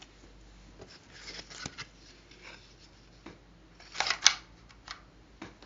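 Quiet handling noise: scattered soft clicks and rustles, with a louder cluster of clicks about four seconds in.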